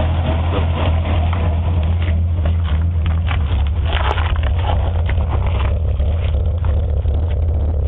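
Nissan RB25DE NEO 2.5-litre straight-six running steadily at a constant speed, with scattered short ticks over a steady low hum. It is misfiring after its spark plugs were changed to NGK Iridium IX BKR5EIX.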